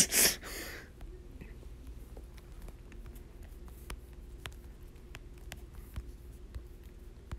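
Faint, scattered clicks and taps of a fingertip touching and drawing on a phone's touchscreen, over a low steady hum. A short breathy rush is heard right at the start.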